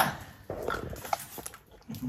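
A few faint, short whimpers from a small child, after a brief louder noise right at the start.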